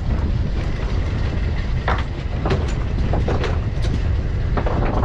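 Steady low rumble of a fishing boat at sea, with a handful of sharp knocks and clatters on the deck about two to five seconds in.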